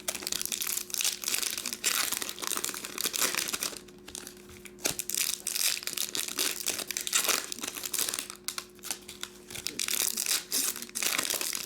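Trading-card pack wrappers being torn open and crumpled by hand: irregular crinkling and tearing rustles in clusters, with short pauses between.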